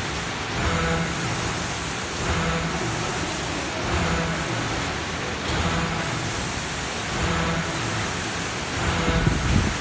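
Checkweigher belt conveyors running, a steady mechanical noise with a low hum and a tonal swell that comes back about every 1.6 seconds, with a few low knocks near the end.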